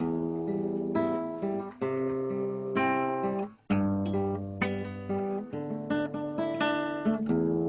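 Acoustic guitar strumming a run of changing chords, with a short break about halfway through.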